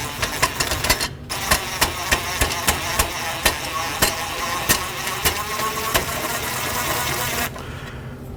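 Cordless power driver whirring as it backs screws out of a car's headlight housing, with a steady run of sharp clicks; it stops abruptly about seven and a half seconds in.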